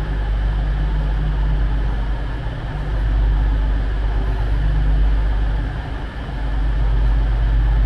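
Diesel train idling at a station platform: a steady low engine hum.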